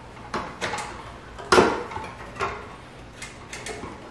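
CushCore tire levers prying a tight Maxxis tire bead onto a mountain bike rim over a CushCore insert: a series of irregular clicks and knocks of plastic, rubber and rim, the loudest about one and a half seconds in with a brief ring.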